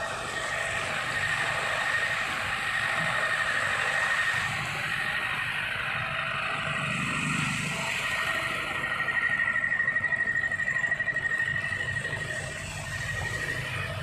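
Road traffic noise heard from inside a car, with a steady high-pitched whine throughout that wavers for a couple of seconds past the middle.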